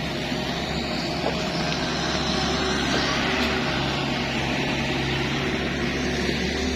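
Kubota excavator's diesel engine running steadily.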